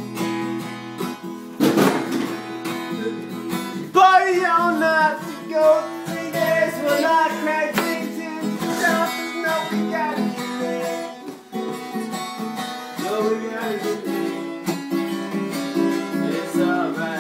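Acoustic guitar strumming chords, with a loud sharp strike about two seconds in and a voice singing along from about four seconds in.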